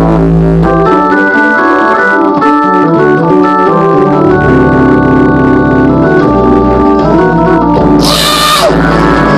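Two-manual console organ played solo in sustained, shifting chords with an improvised melody on top; the low bass notes drop out about a second in and come back about four seconds in. A short, bright hissy burst sounds about eight seconds in.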